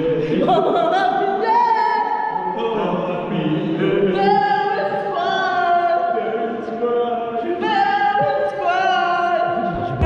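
Unaccompanied choir-like singing, with long held notes that waver slightly and move to a new pitch every second or so.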